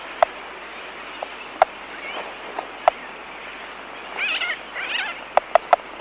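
Laysan albatross colony close up: sharp bill-clacking clicks scattered irregularly, with a quick run of three near the end. About two thirds of the way in come two short chattering bird calls, over a steady background hiss of the distant colony.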